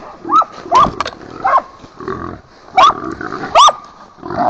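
Hunting dogs barking and baying at a wild hog: about five sharp barks, irregularly spaced, over lower rough growling noise.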